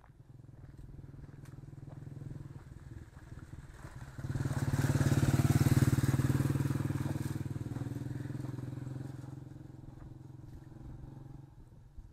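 A motor vehicle engine running steadily, suddenly louder about four seconds in, then fading slowly over the next several seconds as it passes by.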